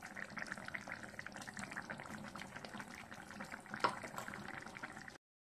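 Coconut-milk fish curry simmering in a pan, a steady patter of small bubbles popping, with one louder pop about four seconds in. The sound cuts off abruptly just before the end.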